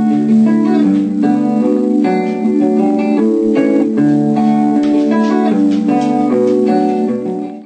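Instrumental background music led by plucked guitar, playing a melody of held notes that cuts off suddenly at the end.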